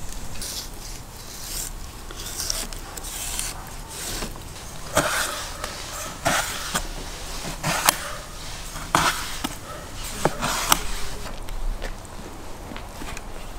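Kitchen knife cutting sturgeon on a wooden cutting board: irregular sharp knocks of the blade against the board, roughly a second apart, with short scrapes between them.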